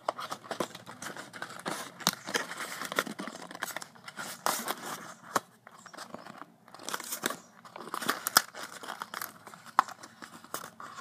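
Cardboard and plastic packaging being handled and pulled apart by hand: irregular rustling and crinkling with many sharp little clicks and scrapes.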